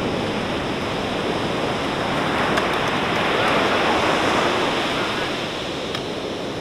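Ocean surf breaking and washing up on a beach, a steady rushing noise that swells a little about midway.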